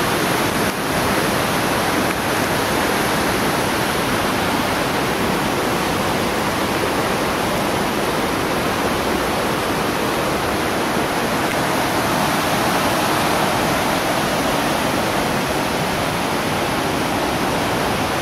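Steady rushing of a rain-swollen, muddy stream in flood, churning over rocks.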